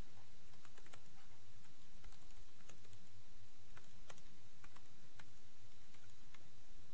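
Typing on a computer keyboard, the keystrokes coming irregularly a few at a time, over a steady low hum.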